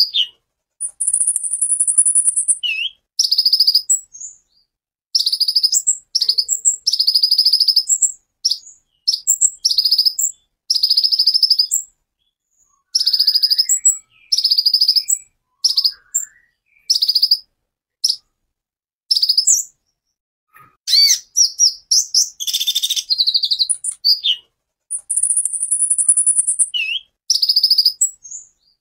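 Male Van Hasselt's sunbird (kolibri ninja) singing its rapid 'tembakan' song: a long string of very high, sharp chirping phrases, each under a second, with short pauses between. A thin, buzzy high trill comes about a second in and again near the end.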